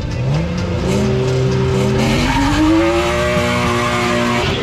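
A car accelerating hard down a drag strip, its engine note climbing in pitch again and again as it shifts up through the gears.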